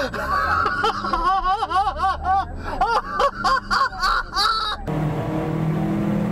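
A person laughing hard in rapid, high-pitched rising-and-falling bursts, several a second. About five seconds in it cuts off abruptly to the steady hum of a car driving.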